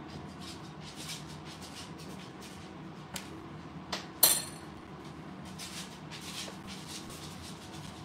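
A cockatoo eating from a stainless steel bowl: soft repeated rustling as its beak works the food, and a few clicks about three to four seconds in, ending in one sharp ringing clink of beak against the metal bowl.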